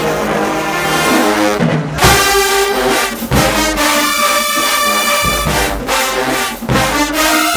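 Marching band playing loudly: sustained brass chords, mostly trombones and trumpets, punctuated by sharp drum hits.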